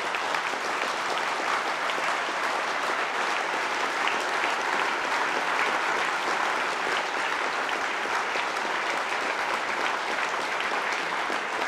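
Applause from a large seated audience, many hands clapping at a steady level.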